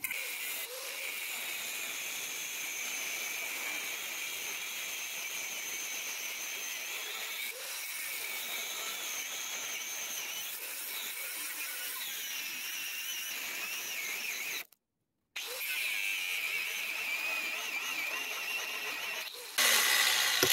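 Angle grinder with a cut-off disc cutting through the head of a rusted steel rivet, a steady high whine that wavers in pitch. It cuts out for about half a second two-thirds of the way through, then comes back louder near the end.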